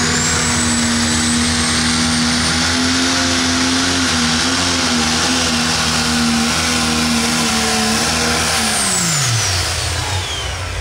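Pro Stock pulling tractor's turbocharged diesel engine held at full throttle under load, with a high turbo whistle over it. About eight and a half seconds in, the throttle is shut and the engine and turbo whine wind down quickly in pitch.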